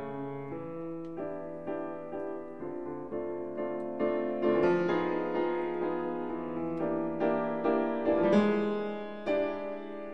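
Background piano music: a slow melody over held chords, each note struck distinctly.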